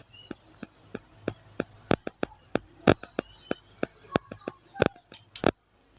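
A run of sharp clicks and taps, about three or four a second, stopping shortly before the end: small tools and parts being handled while the speaker's broken charging pin is soldered.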